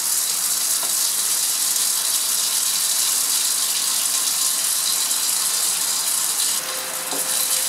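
Vacuum source of a glass-frit vacuum filtration setup running with a steady hiss, drawing liquid through the funnel into the flask. The hiss dips briefly near the end.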